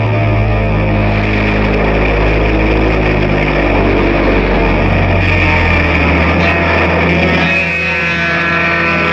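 Instrumental passage of a 1960s psychedelic rock song with no singing: sustained low droning tones that sound engine-like, with guitar, and tones sliding in pitch from about seven seconds in.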